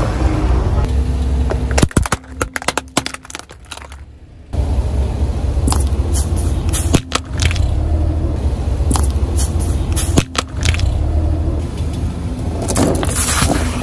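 Car engine running low and steady while a tyre rolls over plastic slime containers on asphalt, with sharp cracks and pops as they break. The engine sound drops away for a couple of seconds about two seconds in.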